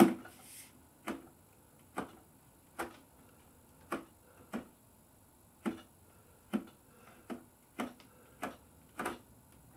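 About a dozen sharp knocks, roughly one a second, on a Schuberth C5 flip-up helmet. This is a test of whether the visor mechanism, its notch regreased with silicone grease, now keeps the visor from dropping.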